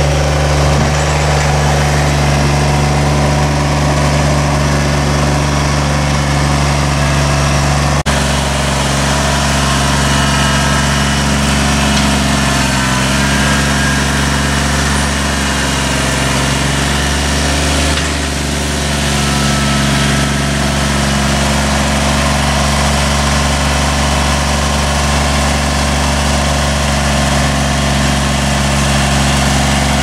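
Kubota BX compact tractor's three-cylinder diesel engine running steadily at a constant speed.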